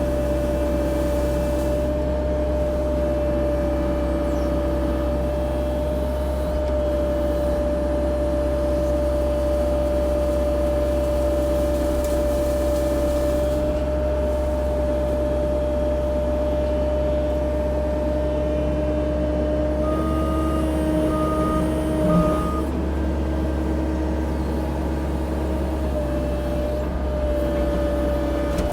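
CAT 304 E2 mini excavator's diesel engine running steadily under work, with a constant whine. About twenty seconds in, three short beeps sound, followed by a single thump.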